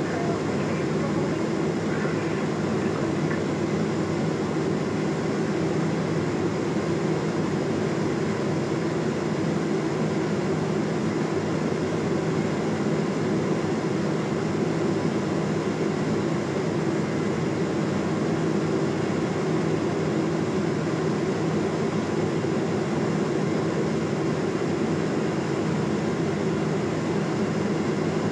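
Steady drone of a Cessna P210 Centurion's piston engine and propeller in cruise, heard inside the cabin.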